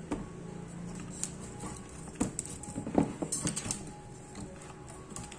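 Scattered clicks and light knocks of hands handling the loose clear panel sheets of a disassembled LCD monitor, the loudest knock about three seconds in, followed by a brief hiss.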